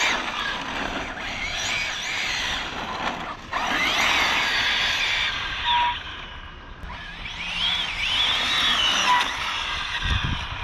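Arrma Felony 1/7-scale brushless electric RC car driving hard on asphalt: a high motor whine that rises and falls with the throttle, over tyre hiss and squeal.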